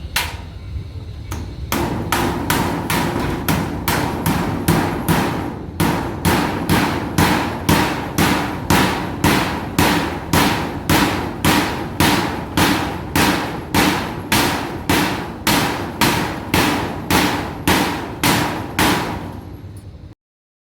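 Hammer driving nails to fix tin sheets to the shed frame: steady, even blows about one and a half a second, with a metallic ring from the sheet. The blows start about two seconds in and stop just before the end.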